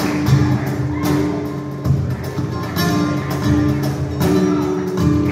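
Flamenco music led by acoustic guitar, with strummed chords every couple of seconds over sustained notes.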